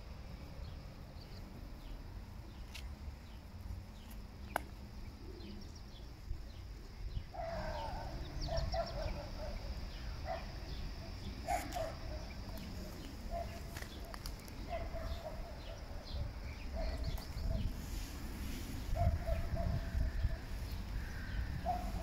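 Hens clucking in a string of short calls that begin about seven seconds in, with small birds chirping and a low steady rumble underneath.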